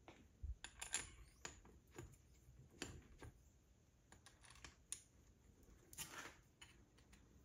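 Faint, scattered clicks and light metallic taps of metric socket-head bolts being handled and started by hand into the steel plate on a lathe tailstock, with a brief scrape about six seconds in.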